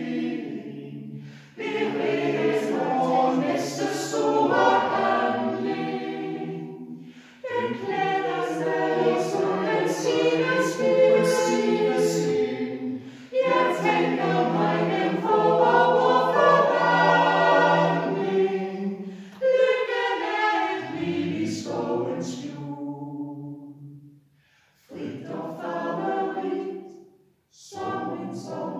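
A mixed choir of men's and women's voices singing a cappella in several harmony parts. The phrases are broken by short pauses for breath, and the last phrases are shorter.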